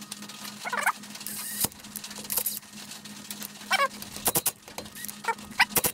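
An animal's short warbling call, twice, about a second in and again near four seconds, over a faint steady hum. A few sharp clicks in the last two seconds come from the cordless impact driver at the engine block's inspection-plate screws.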